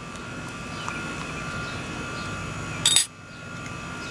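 A metal spoon clinks once, sharply and with a brief ring, against a dish about three seconds in, over a steady low hiss.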